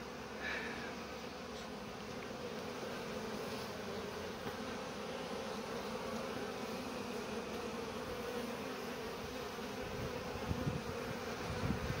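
A colony of honeybees buzzing in a steady hum around their nest, which has been exposed by a cut into the tree trunk, with many bees in the air.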